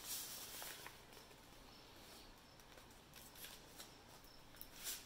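Faint rustling and swishing of a sheet of paper being flipped over and folded by hand into a paper airplane, louder at the start and again near the end.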